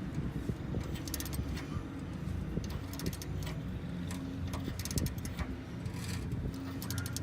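Socket wrench ratcheting in short bursts of rapid clicks, several times over, as the wheel's bolts are tightened, over a low steady hum.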